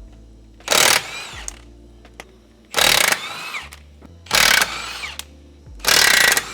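Power tool, most likely an impact wrench, run in four short bursts of about half a second to a second each, undoing fasteners; the whine drops in pitch within each burst.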